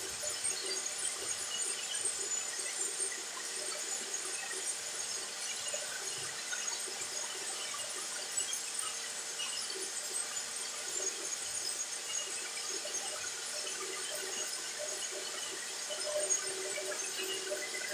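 Soap extruder running steadily: its electric motor and screw drive give a continuous mechanical hum.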